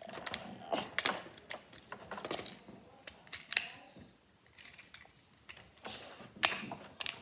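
Irregular plastic clicks and rattles of a Bumblebee Transformers toy being handled, its parts twisted and pushed together, with a quieter stretch in the middle and the loudest clicks near the end.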